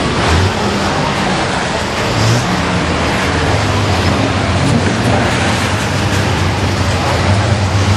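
Diesel racing truck engine running at a steady low drone under a dense rushing noise.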